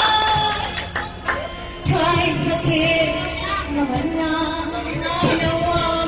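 A song playing: a voice singing long, held notes that slide between pitches over instrumental accompaniment.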